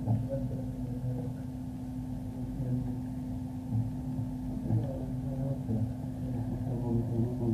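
Muffled, indistinct background chatter on a low-fidelity tape recording, under a steady low hum.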